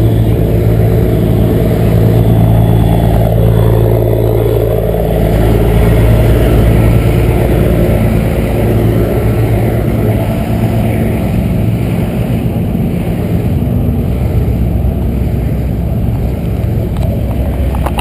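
A large vehicle engine running loudly nearby: a steady, low, pitched drone that is strongest in the first several seconds and a little weaker afterwards.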